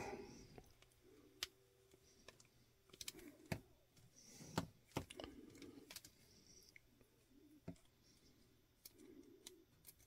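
Faint, scattered clicks and light handling noise of steel wire strippers and solid copper wire as the wire's stripped end is bent into a loop in the hole at the tool's tip.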